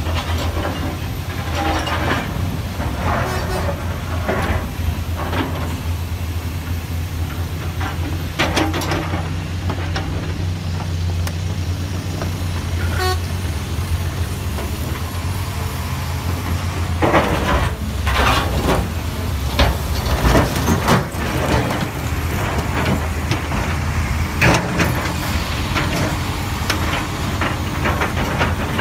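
Komatsu PC450 excavator's diesel engine running steadily under load while the bucket digs rock, with loose rocks knocking and clattering. The clattering is heaviest about two-thirds of the way through.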